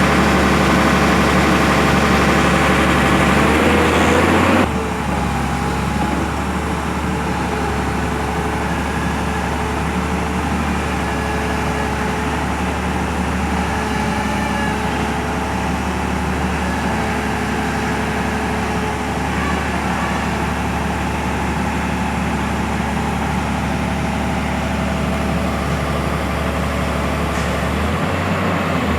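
Heavy engine of a mobile crane running steadily. It drops in level about four and a half seconds in, then carries on evenly.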